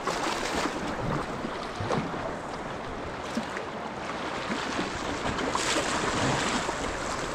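River water running and splashing around a boat, a steady rush with a few brief splashes.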